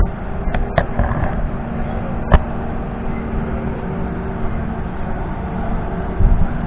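An engine running steadily, with a few sharp knocks, the loudest about two and a half seconds in.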